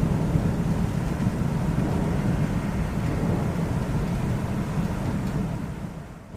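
Low rolling thunder rumbling steadily, then fading away near the end.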